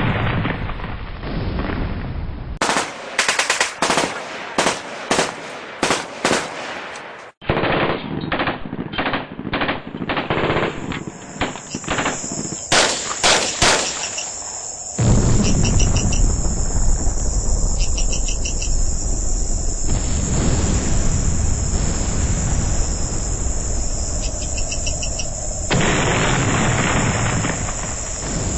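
Battle sound effects: a string of gunshots, about two a second at first and then faster, that give way about halfway through to a steady chorus of chirping crickets over a loud low rumble.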